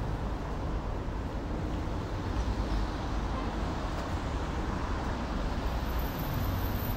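Steady road traffic on a city boulevard: a continuous low rumble of car engines and tyres passing.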